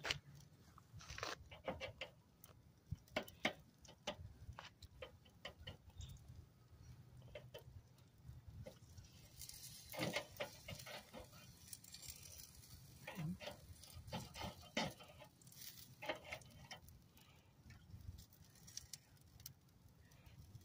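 Scattered light clicks and taps of a knife against the metal grate of a charcoal kettle grill as steaks are cut into, at an irregular pace.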